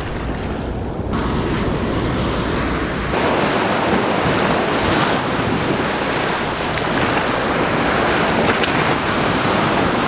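Ocean surf breaking and washing up the beach, a steady loud rush, with wind rumbling on the microphone for the first three seconds.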